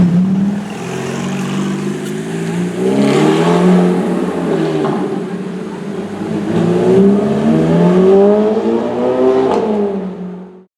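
Ferrari F430's 4.3-litre V8 engine accelerating hard, its revs climbing twice, loudest about three and eight seconds in. The sound cuts off suddenly near the end.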